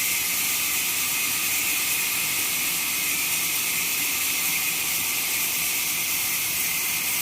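Horizontal trolley band sawmill running, a steady high hiss with no breaks.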